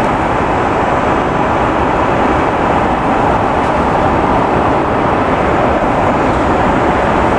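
Steady cabin noise of an Airbus A330 in cruise: engine and airflow noise, even and unbroken.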